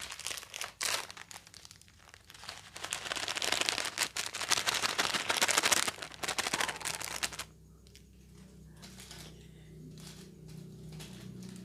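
Plastic seasoning and fried-shallot sachets crinkling and rustling as they are handled and shaken out, with a dense, loud stretch of crinkling from about three seconds in that stops at about seven and a half seconds.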